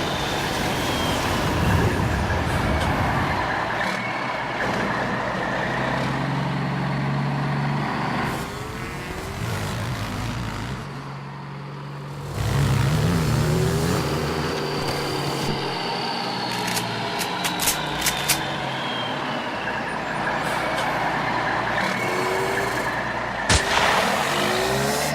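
Layered chase sound effects: heavy vehicle engines running and revving, easing off for a few seconds about halfway through. A few sharp cracks follow later, then a loud bang near the end.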